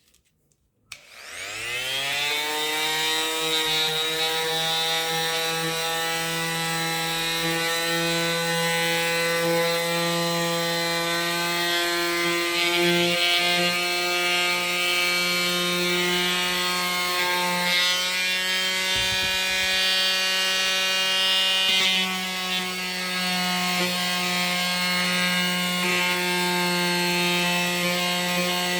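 Oscillating multi-tool switched on about a second in, its pitch rising quickly to a steady buzz as it runs, sanding wood.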